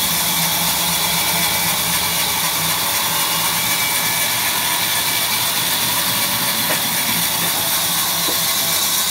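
Sawmill vertical band saw cutting lengthwise through a large log as it is pushed through by hand: a steady, even sawing noise with a low hum of the machine beneath.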